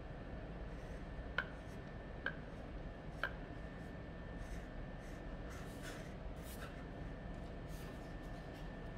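Watercolour brush tapping three times against a plastic palette well while picking up red paint, then faint scratchy brush strokes on paper.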